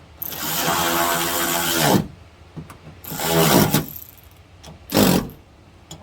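Power driver with a 10 mm socket running in three bursts, a long one of almost two seconds and then two short ones, its pitch sagging as each run ends: a bolt being driven home.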